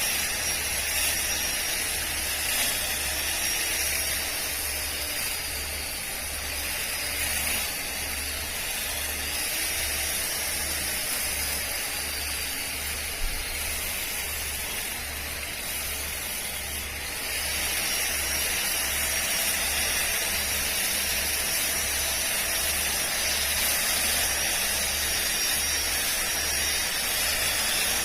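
Makita 18V cordless split ground trimmer running while cutting grass: a high electric-motor whine that drifts in pitch as the load changes, over a steady hiss of the spinning head cutting through the lawn.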